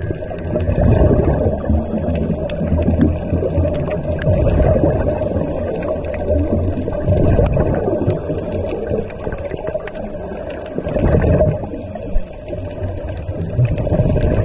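Underwater sound: a muffled low rumble of moving water that swells every three to four seconds, with faint scattered clicks.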